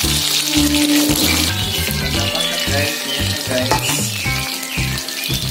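Chicken pieces deep-frying in hot oil in a wok: a steady crackling sizzle, strongest in the first second and a half. Background music with a bass beat plays underneath.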